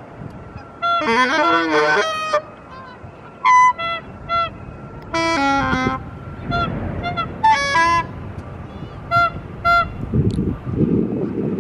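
Canada geese honking: many short honks, singly and in quick runs, with a few longer wavering calls among them. A low rumble, like wind on the microphone, comes in near the end.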